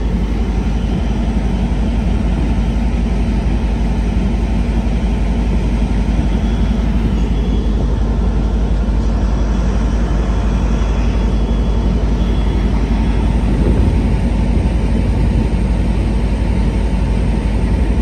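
Amtrak California F59PHI diesel locomotive (EMD 12-cylinder two-stroke 710 engine) running beside the platform, a loud, steady low drone.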